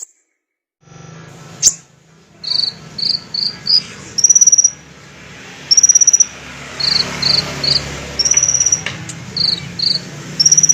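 Sunbird (kolibri ninja) singing: short, high, sharp chirps in quick groups alternating with longer buzzing trills, repeated over and over after a second of silence.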